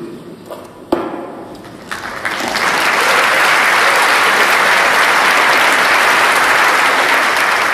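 A large audience applauding, swelling up about two seconds in and then holding steady. A couple of sharp single knocks come before the applause builds.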